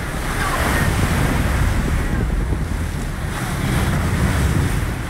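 Wind buffeting the microphone over the steady wash of waves at sea, alongside a boat.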